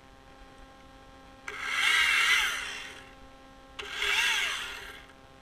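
Husqvarna two-stroke chainsaw revved in two short bursts, each about a second and a half, cutting into a pine trunk; the pitch rises and falls with each squeeze of the throttle.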